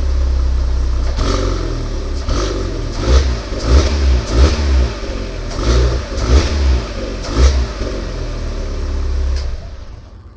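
Fiat Punto Evo's 1.2-litre 8-valve four-cylinder petrol engine, stock and cold, blipped through a series of quick revs from idle. Near the end the revving stops and the engine sound drops sharply.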